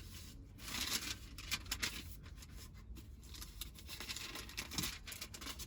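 Faint rustling and light clicks of handling, most of it in the first couple of seconds, as a passage is looked up.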